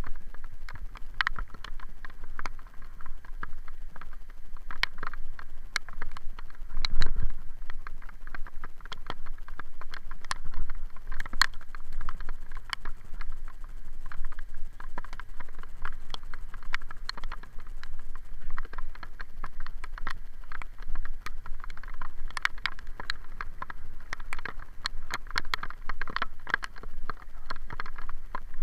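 Irregular clicks, taps and knocks from a camera mounted on a bicycle ridden over a wet road in the rain, over a low rumble, with one louder knock about seven seconds in.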